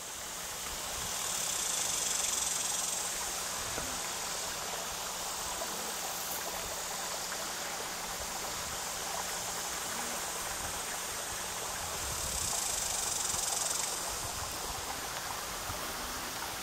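Steady outdoor hiss with a high, buzzing drone that swells and fades twice, once near the start and again about three quarters of the way through.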